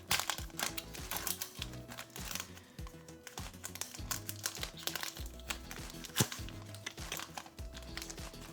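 Trading cards being handled: a run of light clicks and flicks as cards are slid and flipped through by hand, with some crinkling of the foil pack wrapper, over background music.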